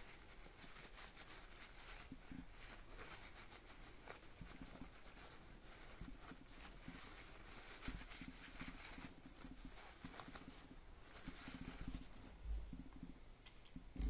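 Faint rustling and scrubbing with a few light clicks: small metal bearing-carriage parts being cleaned and handled by hand.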